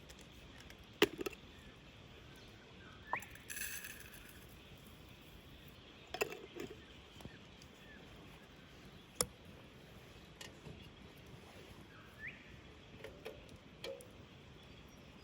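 Scattered light clinks and knocks a few seconds apart, like camp gear being handled, with two short rising chirps and a brief hiss about three and a half seconds in.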